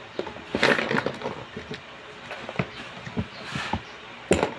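Makeup items being handled: a scattered series of clicks and light knocks, with a brief rustle about half a second in and a sharper knock near the end.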